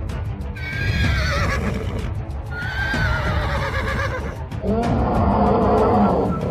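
Two high, wavering animal calls, then a lower, longer call near the end, dubbed as a sound effect over background music.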